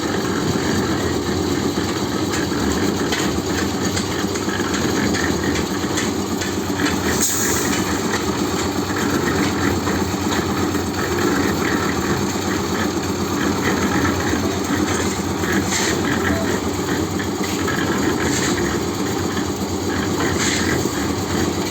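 An engine running steadily at an even pace, with a few faint ticks over it.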